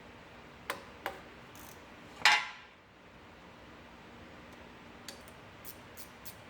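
Hand tools knocking on metal: two light clicks, then one loud metallic clank that rings briefly about two seconds in. Near the end, light ticks repeat about three times a second.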